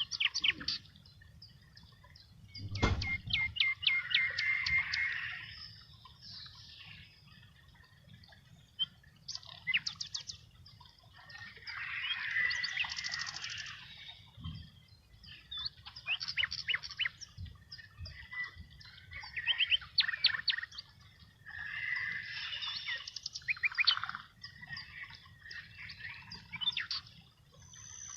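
Birdsong: several birds chirping and trilling in short bouts a couple of seconds apart, over a faint low rumble, with a single knock about three seconds in.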